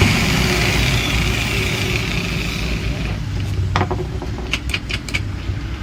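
Electric grinder with a freshly replaced bearing running smoothly, then winding down, its whirr fading over the last few seconds. Several sharp clicks sound near the end.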